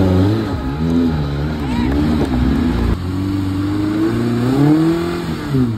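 Small Suzuki four-wheel-drive's engine revving up and down under load as it crawls over a steep, rocky track, its pitch rising and falling every second or so.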